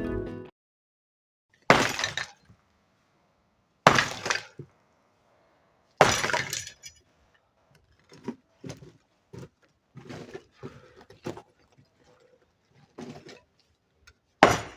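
Masonry and concrete being smashed during demolition: three heavy crashing impacts about two seconds apart, then smaller clattering of breaking rubble, and another big crash near the end.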